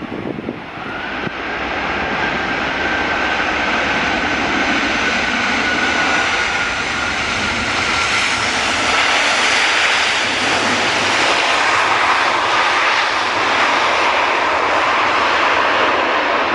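Boeing 747 freighter's four jet engines during the landing rollout, growing loud over the first two seconds after touchdown and then holding a steady jet roar as the engines spool up to slow the aircraft. A faint whine sinks slowly in pitch through the first half.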